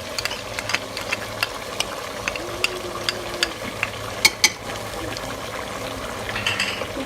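Chicken and potato curry masala sizzling in a cooking pot, with irregular sharp clicks of a spoon knocking against the pot as it is stirred.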